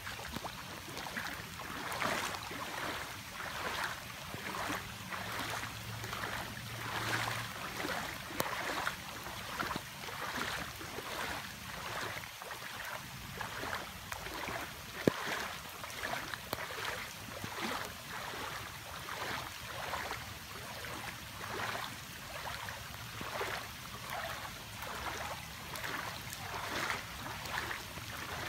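Floodwater on a street rushing and splashing, swelling in repeated surges about once a second, with a single sharp click about halfway through.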